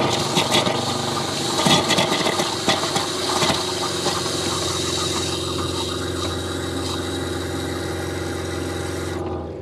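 Tap water running from a pull-down faucet into a nonstick pot, with a steady motor hum under the flow; it cuts off abruptly just before the end.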